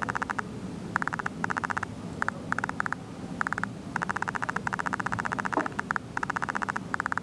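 Computer mouse scroll wheel clicking rapidly in short runs, about a dozen runs of quick even ticks with brief gaps between, over a low steady background hum.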